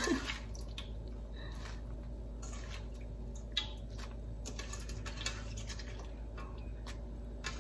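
Chopped kale and chard leaves dropped by hand into a pot of hot soup: soft rustles and small wet plops at scattered moments, over a faint steady low hum.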